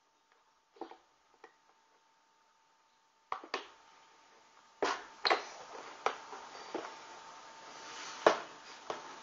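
Hobby knife cutting into a foam model-plane fuselage: a few scattered clicks at first, then sharp scrapes and clicks from about three seconds in, becoming louder and more frequent.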